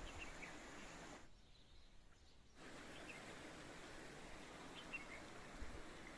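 Faint steady outdoor background hiss with a few short, high bird chirps: near the start, about three seconds in, and again about five seconds in. The background drops away briefly between about one and two and a half seconds.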